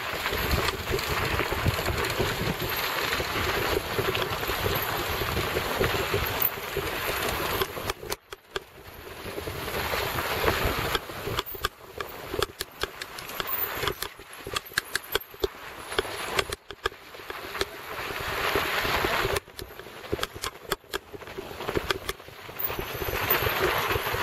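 Wind rushing over the microphone of a mountain bike's onboard camera on a fast dirt-trail descent, with the bike rattling and knocking over the rough ground. The rush drops away briefly twice as the speed eases.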